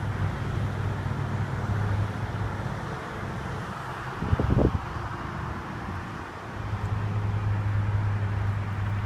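Outdoor traffic ambience: a steady low vehicle hum that fades out for a few seconds and comes back, with a brief louder sound about four and a half seconds in.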